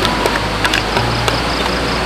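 Steady rushing of a forest stream, with scattered sharp crackling clicks in the first second or so.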